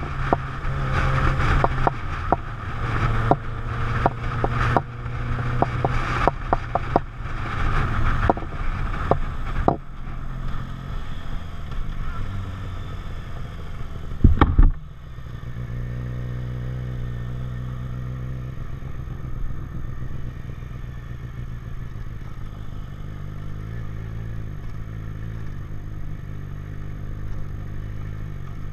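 Sport motorcycle engine running under way, with wind and road buffeting on the on-board microphone crackling through the first part. A loud brief thud about fourteen seconds in is followed by a smoother, steadier engine note that rises and falls a little near the end.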